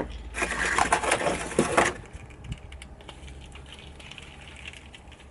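Screws and small metal and plastic parts being worked off a brass shower valve body: a loud scraping, rattling clatter for about a second and a half, then scattered light clicks as the parts are handled.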